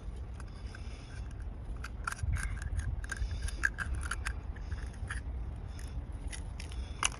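Metal spoon scraping and clicking against an oyster shell as the shell is pried open: an irregular run of short, sharp clicks and scrapes.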